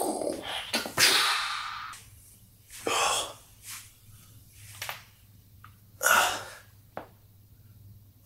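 A man's loud breathy exhales and gasps, several in a row, the loudest starting about a second in and trailing off over a second, with a few faint clicks between them.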